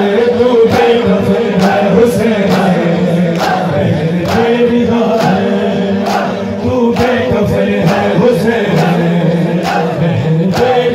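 A large crowd of mourners chanting a noha refrain together with sineh-zani matam: open-hand chest beats landing in unison about twice a second.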